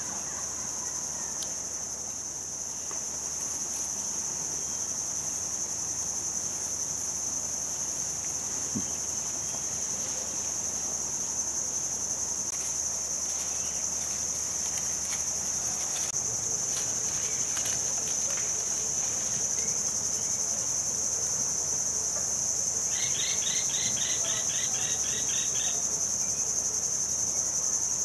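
Steady, high-pitched drone of a chorus of insects such as crickets or cicadas, with a rapid run of about a dozen short chirps near the end.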